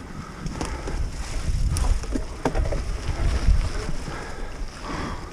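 Mountain bike being ridden on a trail: wind buffeting the microphone and a heavy, uneven rumble from tyres and suspension over rough ground, with a couple of sharp knocks or rattles about two seconds in.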